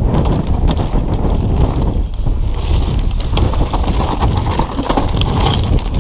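Mountain bike riding fast down a dirt singletrack: wind buffeting the microphone and tyres rumbling over the ground, with frequent clicks and rattles from the bike.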